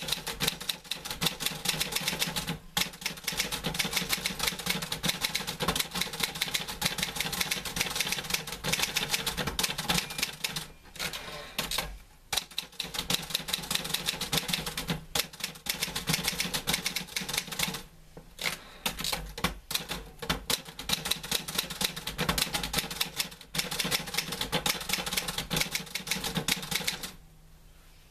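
Typewriter typing in quick, continuous runs of keystrokes, broken by a few short pauses, and stopping about a second before the end.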